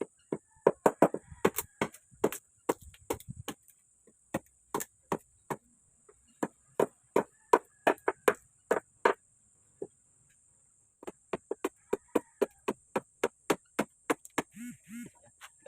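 A blade chopping into wood in quick irregular strokes, two or three a second, with a pause of about two seconds near the middle: rough-shaping a piece of wood into a bolo handle.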